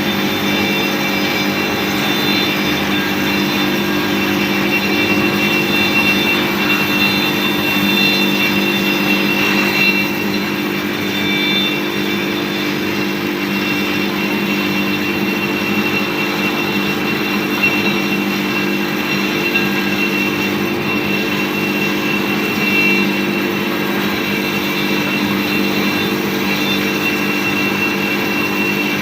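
Bamboo skewer and chopstick pointing machine running steadily, its motor giving a constant hum with a high whine over it.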